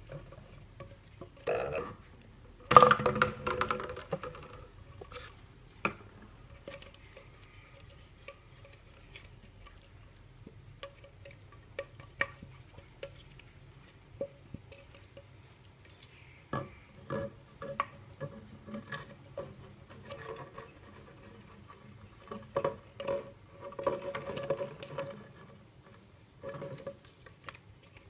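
Hands handling small plastic water bottles, caps and fishing line on a wooden table: scattered clicks and taps, with a louder clatter about three seconds in and a busier run of taps past the middle.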